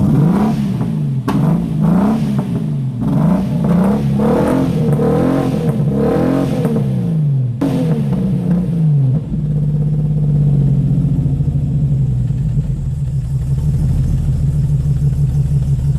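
Holden VK Commodore's 202 straight-six engine blipped about six times in a row, pitch rising and falling each time. There is one sharp pop about seven and a half seconds in as the exhaust spits a little flame. It then settles back to a steady idle. The engine is just back running after eight years of sitting and still seems to be missing.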